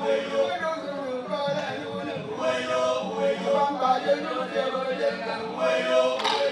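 An elderly man singing a traditional Annang song into a microphone, holding and bending long notes. A brief knock or clap sounds near the end.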